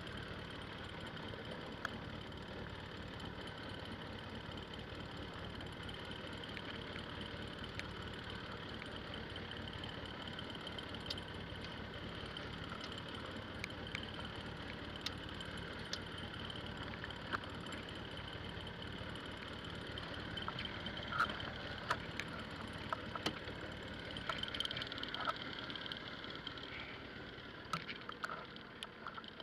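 Engine running steadily with a constant hum. Scattered sharp clicks and knocks come in the second half, and the hum falls off slightly near the end.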